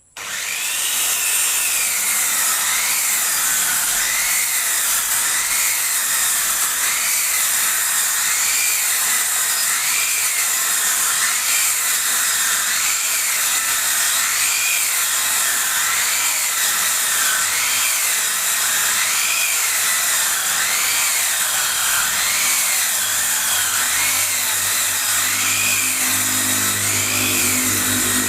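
Circular saw machine ripping a wooden plank lengthwise, starting suddenly and running steadily under load, its whine wavering up and down about every second and a half.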